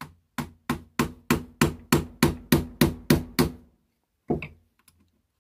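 Small hammer tapping a pin out of a BSA Lightning air rifle's cocking linkage, the rifle resting on a plastic stand: about a dozen even strikes, roughly three a second, each ringing briefly, then one more strike after a short pause.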